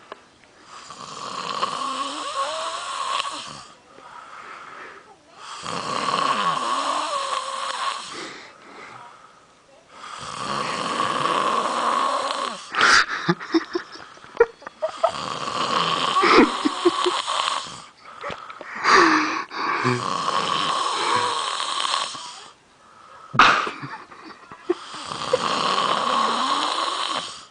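A young man snoring loudly in deep sleep: six long, rasping snores, one about every four and a half seconds, with a couple of sharp clicks between them.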